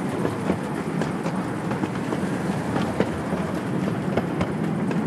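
Small ride-on miniature railway train running, a steady rumble with irregular clicks and clacks from the wheels on the track.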